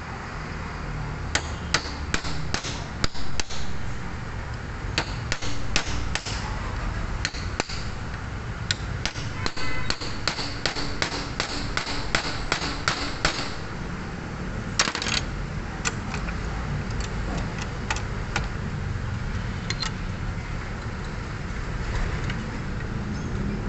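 Metal hand tools clicking and tapping against parts of a dismantled steering rack: a quick run of sharp clicks for the first half, a short dense burst a little after the middle, then only a few scattered taps. A steady low rumble runs underneath.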